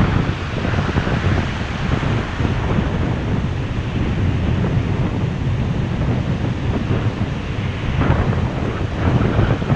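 Surf breaking and washing up the beach, with wind buffeting the microphone as a steady low rumble. The sound swells a little near the end.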